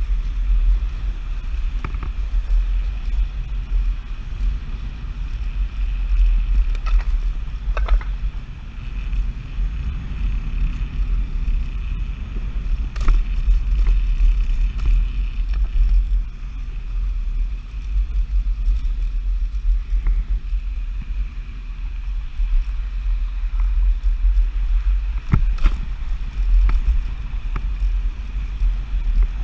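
Nanrobot Lightning dual-motor electric scooter ridden at speed on solid tyres: a heavy low rumble of wind and road vibration, a steady thin high whine, and a few sharp knocks from bumps in the pavement.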